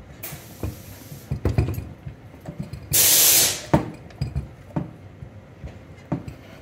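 Handheld hydraulic hose crimper being hand-pumped to close its dies on a hose fitting, with irregular clicks and knocks from the pump strokes. A loud hiss lasting about half a second comes about three seconds in, and a fainter hiss in the first second.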